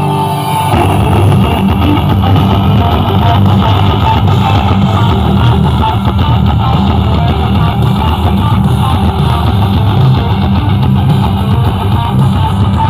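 Loud rock music with electric guitar and heavy bass, played at high volume through large outdoor sound-system stacks of subwoofers and speaker cabinets. Under a second in, held tones give way to fuller, denser music.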